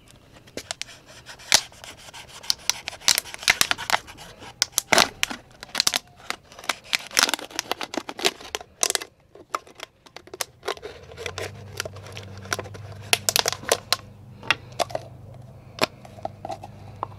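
Knife blade sawing through a thin plastic water bottle: rapid runs of sharp crinkling clicks and scrapes from the plastic, pausing briefly about nine seconds in. A low steady hum comes in about eleven seconds in.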